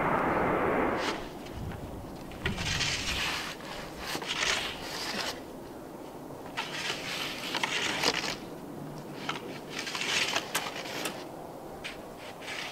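Airbus A320's jet engine noise that cuts off about a second in. After that come short scraping, crackling noises every couple of seconds.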